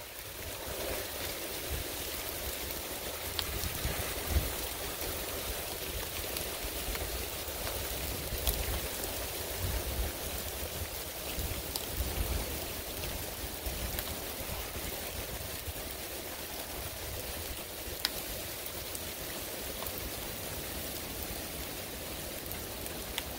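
Heavy thunderstorm rain pouring down steadily, a sudden hard downpour, with a low rumble underneath and occasional sharp ticks of drops striking close by.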